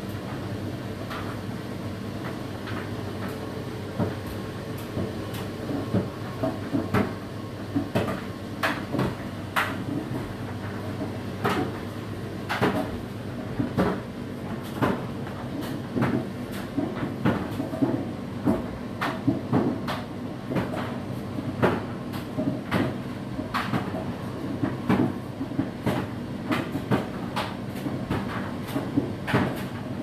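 Whirlpool WFO3P33DLXUK dishwasher mid-way through its 65 °C wash cycle: a steady pump hum and water spraying inside, with irregular sharp knocks and clicks that come more often in the second half.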